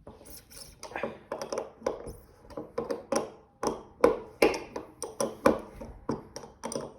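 Irregular metallic clicks, taps and knocks, about three a second, of hands and a tool working at a very tight part on a gravity-feed paint spray gun while it is being taken apart.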